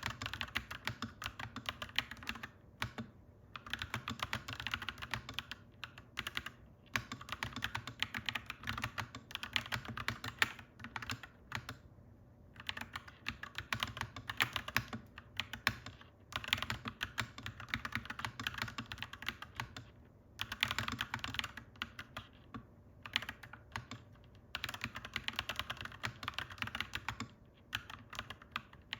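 Typing on a clacky mechanical keyboard: quick runs of keystrokes in bursts, broken now and then by short pauses.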